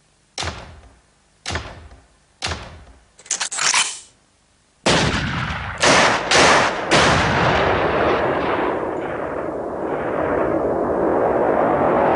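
Gunshots: three single shots about a second apart, then a quick cluster of shots. From about five seconds in, a sustained loud din with a few more heavy reports in it.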